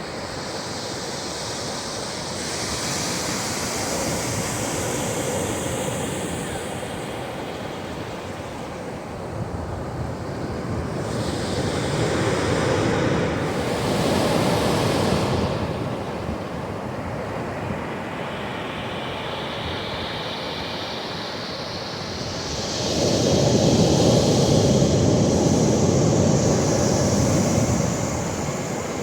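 Ocean waves breaking on a shore: a steady wash of surf with swells every several seconds, the biggest crash coming near the end and hissing away as it recedes.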